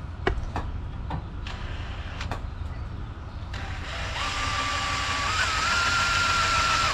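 A few sharp clicks, then a small electric power tool spinning up about three and a half seconds in, its steady whine stepping up in pitch twice.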